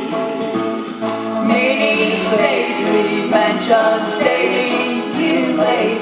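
Gospel music with voices singing together over instrumental accompaniment.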